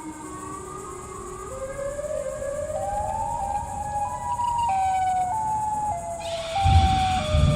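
Synthesized siren-like tone rising in distinct pitch steps for about four seconds, then stepping back down. Deep booming thuds come in near the end, as part of a scary siren song.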